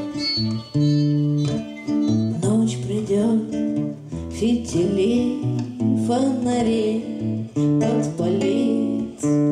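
Acoustic guitar and violin playing together in a song's instrumental passage: steady guitar chords and bass notes, with a wavering, gliding melody line coming in about two and a half seconds in.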